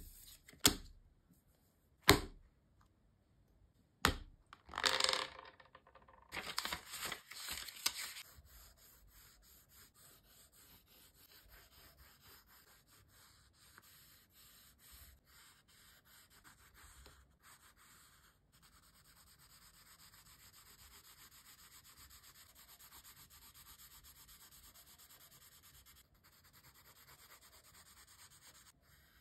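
Pencil scratching on sketchbook paper, drawing and then shading with rapid back-and-forth hatching strokes. In the first few seconds there are three sharp taps and a short papery rustle.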